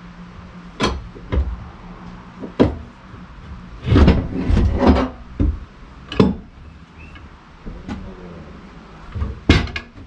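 A cant hook levering and shifting a squared log on a steel sawmill bed: a string of separate knocks and clunks, with a cluster of heavier thumps about four to five seconds in and another sharp knock near the end.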